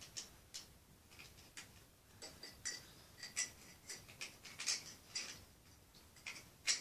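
Plastic toy vehicles and toy logs being handled, making light, irregular clicks and taps, with one sharper click near the end.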